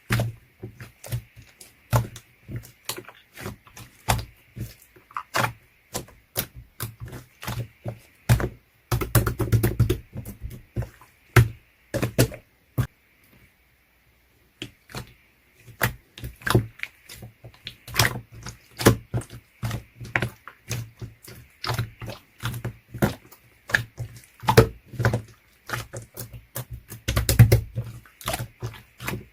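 Slime being pressed and squeezed by hand, making rapid, irregular clicks and pops, with a short pause about halfway. Denser squelching bursts come about nine seconds in and again near the end.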